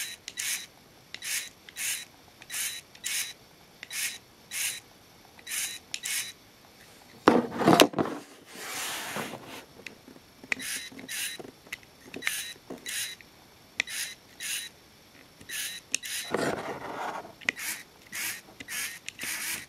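Lego Power Functions servo motor whirring in short bursts, mostly in close pairs, as it turns its arm out and back to centre on the remote's commands. A louder handling rub comes twice, about seven and sixteen seconds in.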